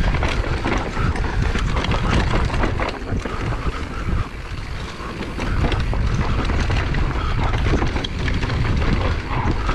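Wind buffeting a GoPro microphone as an enduro mountain bike runs down a bumpy dirt trail. A steady low rumble is mixed with many small clicks and rattles from the tyres and bike over rough ground.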